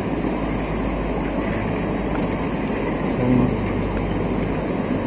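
Steady rushing noise of an aquarium room's water circulation: water streaming into the breeding tanks and the filtration pumps running, with a low hum underneath.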